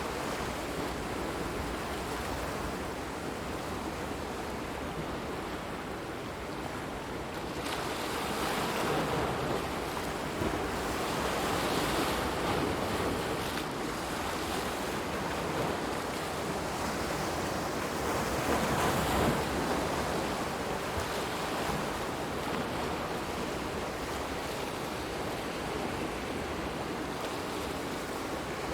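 Ocean waves washing in, a continuous rush of water that swells louder a few times and eases back.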